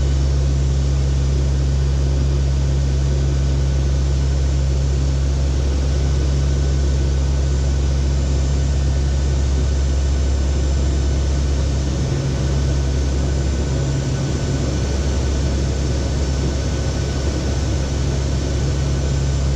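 Cockpit drone of a NOAA WP-3D Orion's four turboprop engines in flight: a loud, steady low hum with an even hiss over it.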